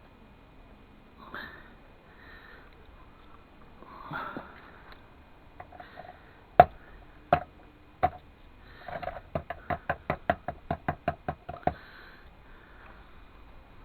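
A person sniffing twice, then sharp knocks on a hard object: three spaced taps, followed by a quick run of about a dozen taps, some six a second, each with a short ring.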